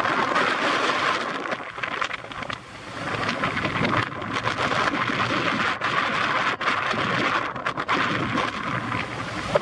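Strong wind buffeting the camera microphone: a rough, rushing noise that rises and falls, dipping briefly about two and a half seconds in.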